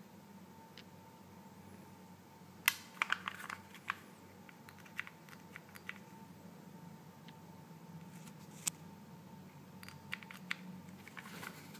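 Small sharp clicks and knocks from a KWA/Umarex USP Compact gas-blowback airsoft pistol being handled: a quick cluster about three seconds in, a single click near nine seconds, and a few more near the end.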